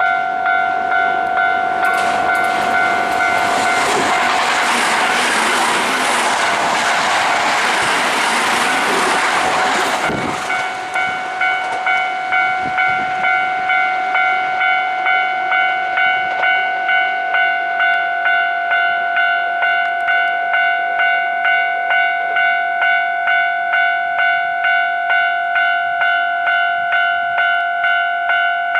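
Japanese level-crossing warning bell ringing in a steady repeating rhythm, with a Hankyu Kyoto Line electric train rushing past over the first ten seconds or so; the train noise stops sharply and the bell keeps ringing.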